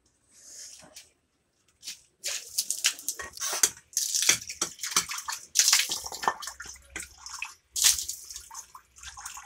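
Water splashing and sloshing in quick, irregular bursts, starting about two seconds in.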